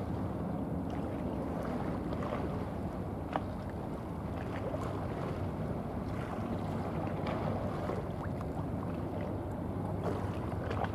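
Steady low drone of ship engines across the water, from a general cargo ship and the two tugboats escorting it, with wind on the microphone and a few light ticks.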